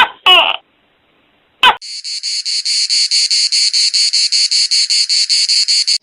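A cricket chirping in a fast, even, high-pitched trill of about six pulses a second, starting about two seconds in. It is preceded by two short, loud calls, one falling in pitch, and a click.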